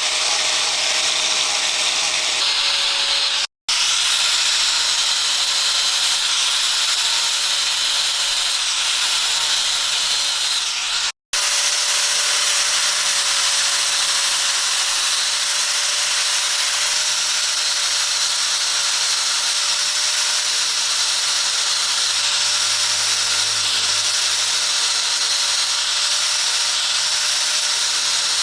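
Electric grinder working metal: a steady, high grinding hiss over a constant motor tone, cutting out abruptly twice.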